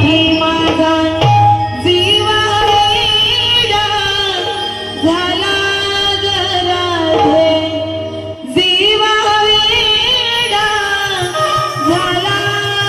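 Indian devotional folk music: a sung gavlan melody with harmonium-like accompaniment and a steady low drone, with a brief break about eight seconds in.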